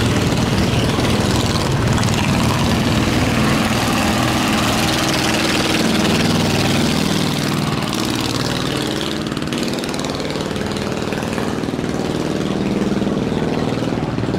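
Boat engine running steadily with a low, even drone, its pitch shifting a little partway through.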